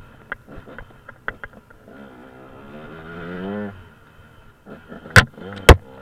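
An engine revving, its pitch rising, amid scattered rattling clicks, then two loud sharp knocks half a second apart near the end.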